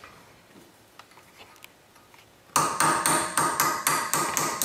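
Hammer tapping a small chisel against the steel dust cap on a Toyota 100 Series Land Cruiser's front wheel hub to knock it off. After a few faint taps, a quick run of ringing metal strikes starts suddenly about two and a half seconds in, about five a second.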